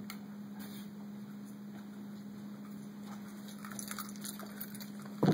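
Energised AC induction coil with an iron core (a jumping-ring apparatus) humming steadily at mains frequency, with faint scattered clicks in the second half. A sharp knock about five seconds in.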